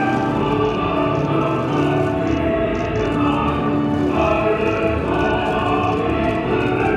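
Music with held, choir-like voices over sustained instrumental tones, steady throughout, with a light regular ticking beat.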